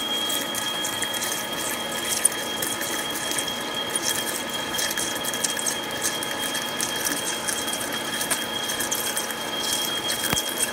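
A lathe drilling a 1-3/4-inch hole into solid 6061 aluminium with a Kyocera indexable drill at about 450 RPM, with through-coolant. The cut holds a steady high whine under a constant scatter of small crackles.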